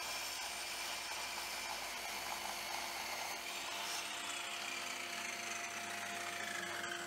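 Electric drop saw (compound mitre saw) running and cutting through a block of wood. From about four seconds in, a whine falls steadily in pitch.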